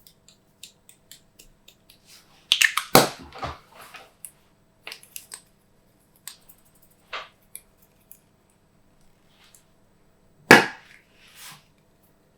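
Glossy slime being pressed and mixed by hand, giving scattered small clicks and sticky pops. A louder cluster of pops comes about three seconds in, and one loud pop near the end.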